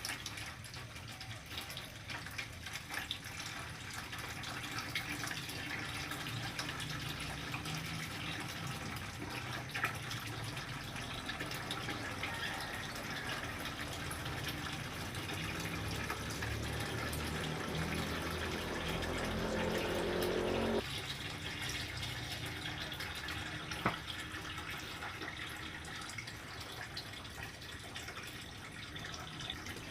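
Water trickling and splashing steadily, like a small stream. A low sound with a rising pitch builds over a few seconds and cuts off suddenly about two-thirds of the way through. Two sharp clicks are heard.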